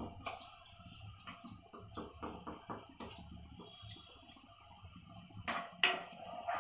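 Jaggery melting in ghee in a non-stick pan, faintly sizzling and crackling with irregular small pops, while a spatula stirs it; a couple of louder spatula knocks against the pan near the end.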